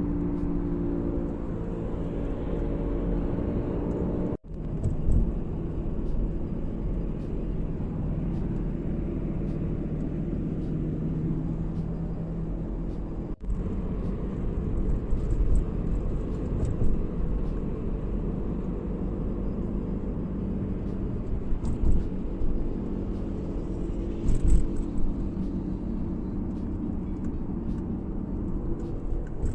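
Audi A6 C6 under way: steady engine and road rumble, with a low drone that breaks off abruptly twice, a few seconds in and about thirteen seconds in.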